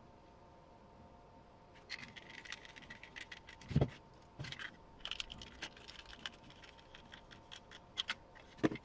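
Hand assembly of plastic RC kit parts and small hardware: scattered light clicks and scrapes, with one heavier knock a little before four seconds in.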